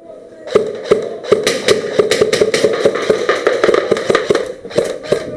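Airsoft guns firing in close-quarters play: a dense, irregular run of sharp cracks and clicks, several a second, starting about half a second in.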